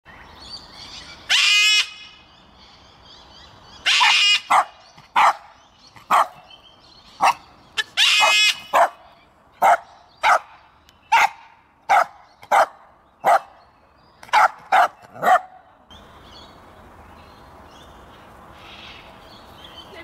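Sulphur-crested cockatoo calling: three long harsh screeches in the first nine seconds, mixed with a run of short squawks about one a second, which stop about 15 seconds in.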